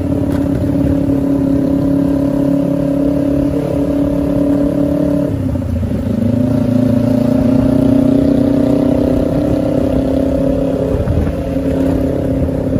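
Custom Kawasaki Ninja 250 cafe racer's engine running steadily while riding along the road. The note dips briefly about five seconds in, then picks up again.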